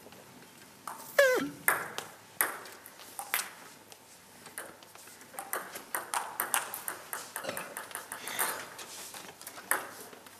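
Table tennis balls clicking off tables and bats, an irregular string of sharp pings. About a second in comes a short squeak that falls in pitch.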